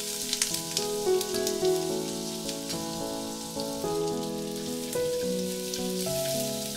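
Food sizzling in a frying pan, with scattered crackles, over soft piano background music.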